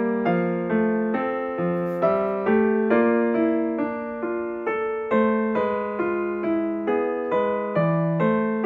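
Background keyboard music: a gentle piano-toned tune, its notes struck at an even pace of a little under two a second.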